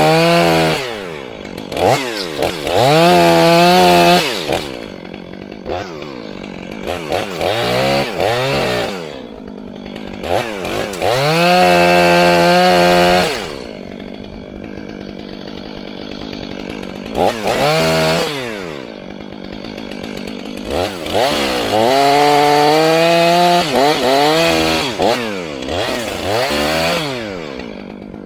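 Gas chainsaw bucking a felled tree into firewood logs: it revs up to full throttle for cuts of a few seconds each, three long ones, and drops back to idle between, with short throttle blips.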